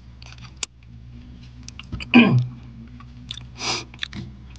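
A person's short wordless vocal sound about two seconds in, falling steeply in pitch, and a brief breathy burst over a second later, with small mouth clicks and a steady low hum.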